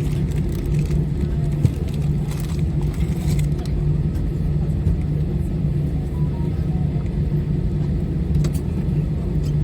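Cabin noise inside an Airbus A320 taxiing after landing: a steady low rumble of the idling engines and the wheels on the taxiway, with a constant hum and a few faint rattles.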